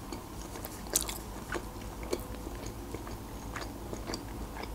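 Mouth sounds of a person chewing a soft meat roll with cheese and potato, mouth closed: irregular short clicks and smacks, the loudest about a second in.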